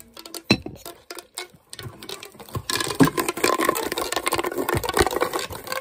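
Plastic pop tubes, ridged toy tubes, being stretched and bent. A few scattered clicks come first, then from about three seconds in a dense run of rapid crackling clicks as the ridges snap open and shut.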